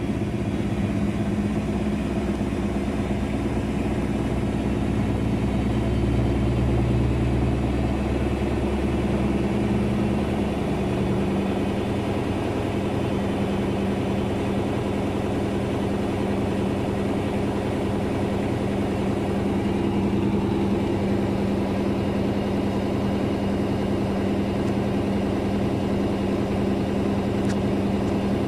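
Daewoo DWD-FT1013 washing machine's drum spinning at up to 800 rpm with an unbalanced load, a steady machine hum. The low rumble is heavier early on and eases about ten seconds in.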